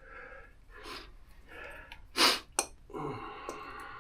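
A man's breathy exhalations and hums, spaced about every half second to second. A short, very loud burst of noise comes about two seconds in, followed by a sharp click.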